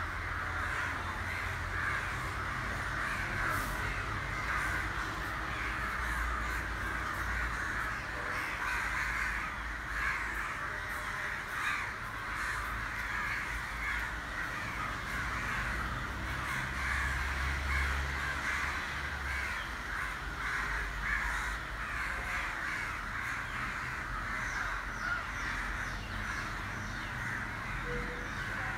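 A large flock of crows cawing all at once in a dense, unbroken chorus of overlapping calls.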